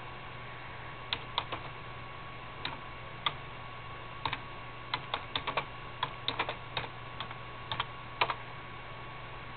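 A run of irregular light clicks, about two dozen of them, some in quick clusters, the sharpest one near the end, over a steady low hum and hiss.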